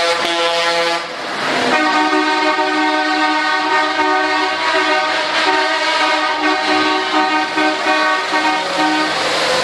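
Truck air horns sounding a chord of several tones: a short blast, a brief break, then one long held blast of about eight seconds.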